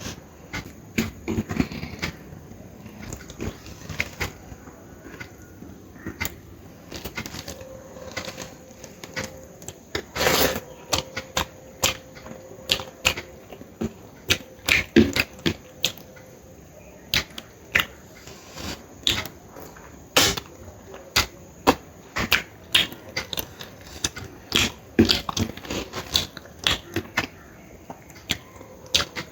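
Close-up eating sounds: irregular sharp mouth clicks and wet chewing, a few to several a second, as a person eats rice with rohu fish curry, fish belly and fish head.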